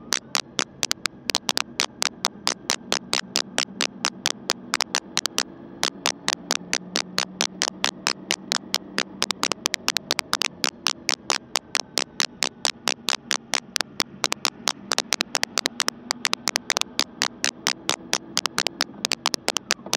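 Rapid, sharp clicks at about five a second, raindrops striking the camera housing, over the steady low drone of a BMW K1600 motorcycle riding on a wet road.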